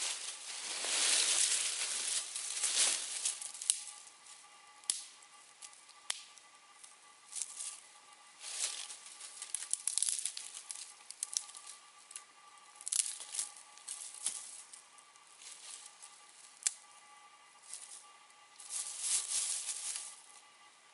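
Campfire of burning wood crackling, with sharp pops and swells of hiss every few seconds.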